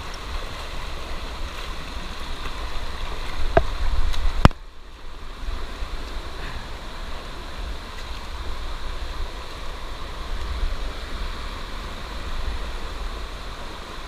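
Fast, shallow stream rushing over rocks, a steady hiss of water, with a low rumble on the microphone. Two sharp knocks come around four seconds in, and the second is followed by a brief drop in level.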